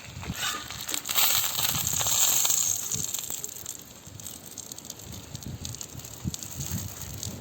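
Banana-leaf parcel of chicken frying on a hot dosa griddle, the leaf crackling and sizzling in the oil; the sizzle swells loudest for a couple of seconds about a second in, with small knocks throughout.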